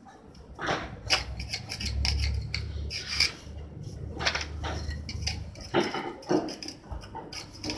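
Irregular scraping and sharp clinking of tools on a hard surface, with a low rumble underneath that stops a little past halfway.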